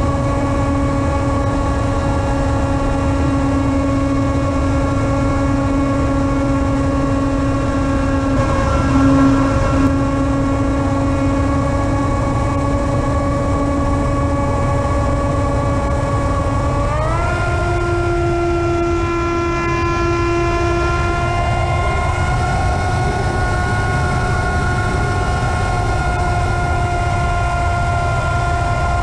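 Electronic background music of long, sustained droning chords over a low rumble, with the held tones sliding up to a higher chord about two-thirds of the way through.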